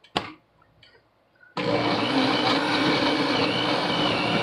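Countertop blender switched on about a second and a half in and running at full speed, puréeing roasted tomatillos, onion, jalapeño and tomatoes into salsa. There is a sharp click near the start as the jar is handled.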